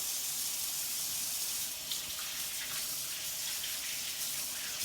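Kitchen sink tap running steadily while hands are washed under it.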